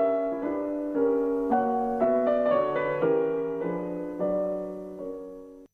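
Piano playing a short passage of chords, a new chord struck every half second or so, growing quieter and cutting off abruptly near the end.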